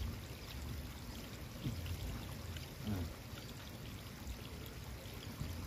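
Steady running water from the flooded rice paddies, with a faint voice twice.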